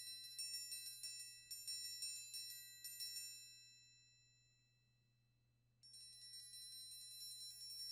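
Orchestral triangle struck with a triangle beater in a quick, uneven run of articulated notes, each stroke setting off its bright, high ringing. About a third of the way in the strokes stop and the ringing dies away to near silence over a couple of seconds. Rapid strokes start again suddenly near the end.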